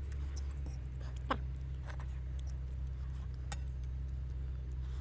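Metal fork clinking and scraping in a metal wok of spicy noodle soup (seblak) as food is picked out, in several sharp clicks over a steady low hum. There is a short falling squeak about a second in.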